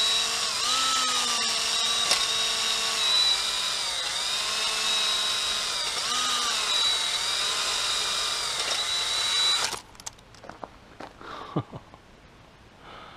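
Power drill spinning an oiled stone cylinder hone in a cylinder bore of a Toyota 20R engine block. The motor whine dips and rises in pitch as it runs, then stops abruptly near the end, leaving a few light knocks.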